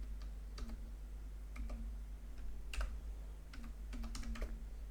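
Computer keyboard being typed on: scattered single keystrokes and quick pairs, about ten in all, over a steady low hum.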